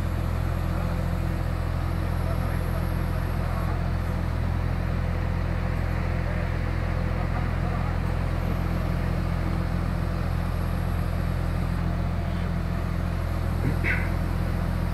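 Beiben crane truck's diesel engine running steadily with a low, even hum while it powers the crane's hydraulics during the lift. A brief squeak comes near the end.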